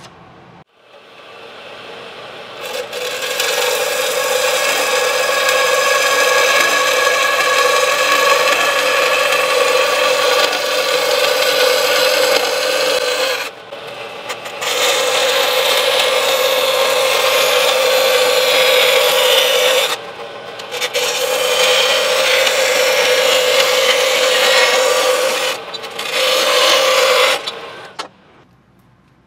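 Metal-cutting bandsaw, set upright, cutting through a thin sheet of metal: a loud, steady, screechy cutting sound over the blade's hum. Three times it eases back to the saw running freely as the feed pauses, and it stops near the end.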